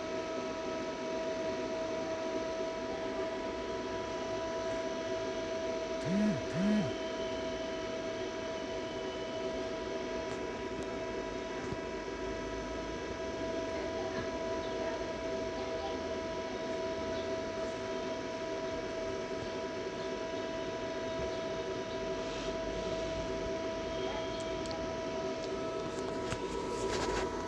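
Steady electrical hum made of several constant tones over a light hiss, with two short low blips in quick succession about six seconds in.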